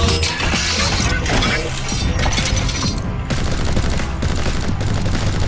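Action sound-effects soundtrack: rapid volleys of gunfire-like shots layered over a music bed with a steady low bass.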